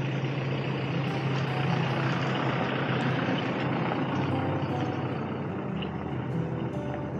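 Toyota Hilux pickup with an expedition cabin driving slowly past on a gravel track: a steady engine hum with tyres crunching over gravel, fading a little as it moves away near the end.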